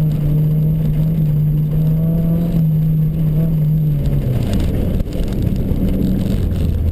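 Rally car's engine heard from inside the cabin, held at steady high revs. About four seconds in the revs drop and it runs on at a lower pitch.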